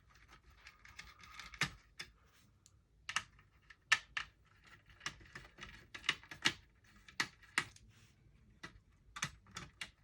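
Irregular sharp clicks and taps of a screwdriver and small metal parts while the CPU heatsink screws of a Dell Latitude D630 laptop are being undone.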